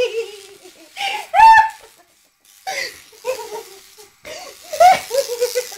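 Women laughing and giggling in several bursts, the loudest about a second and a half in.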